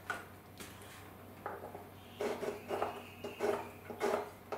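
Pencil drawn back and forth across a plywood former to mark a line, a run of short scratchy strokes about every half-second starting about two seconds in, after a small click at the start.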